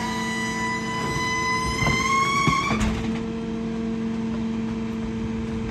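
Rear-loader garbage truck's packer mechanism squealing loudly: a single high squeal that climbs slowly in pitch and cuts off sharply about three seconds in, over the truck's steady running drone. The loud squeezing is a sign that the truck needs maintenance.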